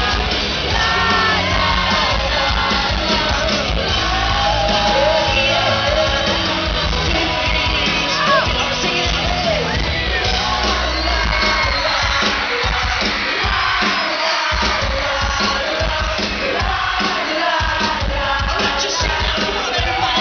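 Live pop-rock band playing through a concert sound system, with sung lead vocals over electric guitars and drums, and the audience yelling along.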